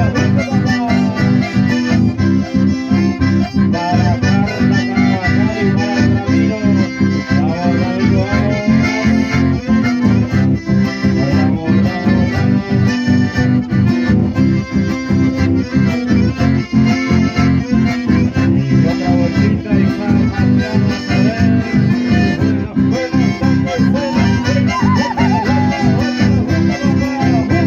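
Live chamamé: two accordions carry the melody over strummed acoustic guitars, with a steady, even beat.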